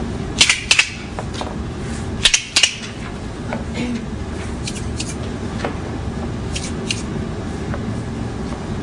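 Montessori cardboard sound cylinders shaken one after another, their filling rattling in short quick bursts. There are two louder bursts of about three shakes each in the first three seconds, then a few fainter rattles later on, as the cylinders are compared by ear to check that the pair matches.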